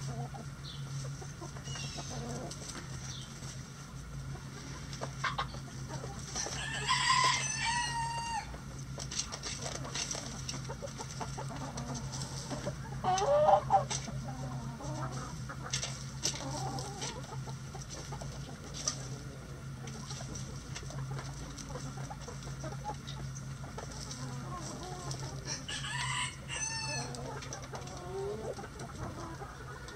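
A flock of backyard hens clucking softly as they peck at feed. A rooster crows about seven seconds in and again briefly near the end, and a louder call from a hen close by comes about halfway through.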